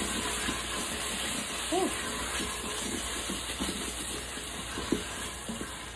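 A stew base sautéing in an Instant Pot's stainless steel inner pot, giving off a steady hiss, while a wooden spoon stirs it with quick scrapes and knocks against the pot. One sharper knock comes about five seconds in.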